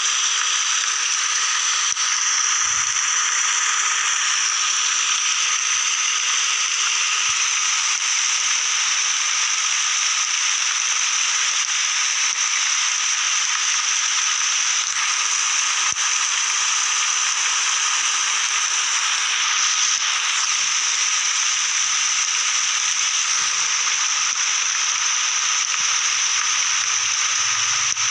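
Steady rain falling in a forest, an even hiss that holds unchanged throughout.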